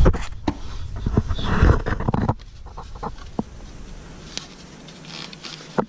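Rubbing and knocking of a handheld camera being moved about, loudest in the first two seconds, then a few light clicks as a hand reaches up into the engine block.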